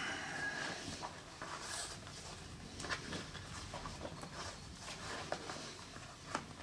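Boots being laced by hand: the laces pulled through the eyelets and tugged tight, giving faint rustling with scattered light clicks.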